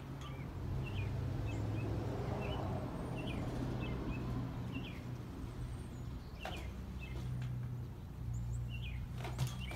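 Mountain bike tyres rolling on asphalt as the bike rides onto a narrow wooden beam, with a sharp knock near the end. Small birds chirp repeatedly over a steady low hum.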